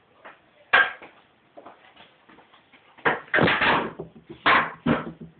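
Knocks and scuffs: one sharp knock about a second in, then a louder cluster of scuffing knocks a little after three seconds, and two more near the end.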